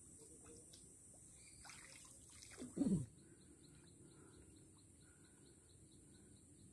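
Quiet lakeside ambience with a quick, even series of faint high chirps. About three seconds in there is one brief, louder call that drops sharply in pitch.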